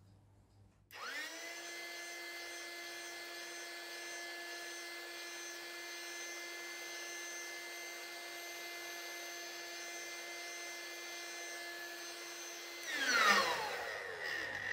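A small 12-volt electric air pump switching on about a second in, rising briefly to speed, then running with a steady whine as it blows air into the air engine. Near the end it is switched off and spins down with a falling pitch and a brief louder burst.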